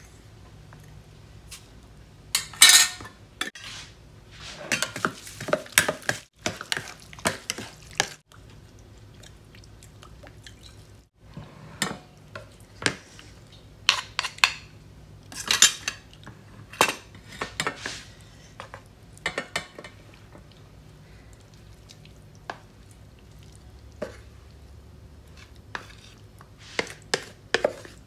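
Spoons clinking and scraping against a plastic mixing bowl as a salad is tossed, in irregular bursts with quiet gaps between them. Near the end the salad is scraped out of the bowl onto a plate.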